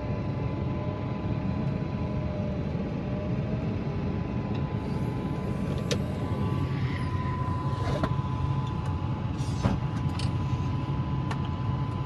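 Grain-cart tractor running steadily, heard from inside the cab, with a thin steady whine over the engine and a few sharp clicks in the second half.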